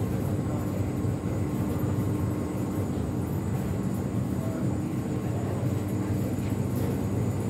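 Steady low hum and rumble of an airport lounge's background ambience, even throughout with no distinct events.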